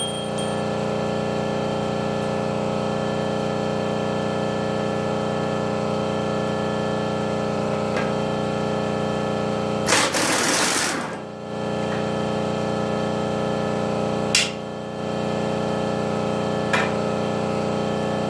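A steady mechanical drone made of several fixed tones, broken by a noisy burst lasting about a second roughly halfway through and a couple of sharp knocks later on.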